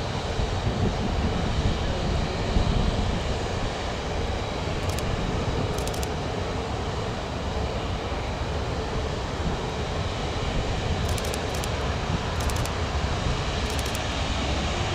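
Airbus A380-800's four Rolls-Royce Trent 900 turbofans at low taxi power: a steady rumble with a faint high whine as the jet taxis and turns.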